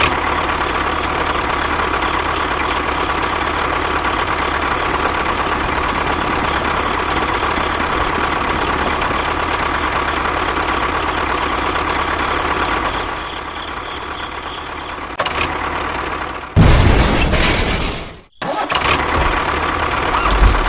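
Steady engine-like running noise that shifts abruptly several times in the second half: it dips, then surges loudly, cuts out for a moment and comes back running steadily.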